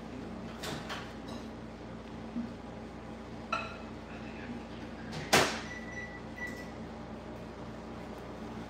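Household kitchen clatter: a few light clicks and knocks, the loudest a sharp knock about five seconds in, like a cupboard door shutting, followed by two short high beeps.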